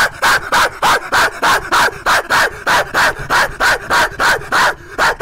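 A man barking like a dog into a headset microphone: a fast, loud, evenly spaced run of barks, about four a second.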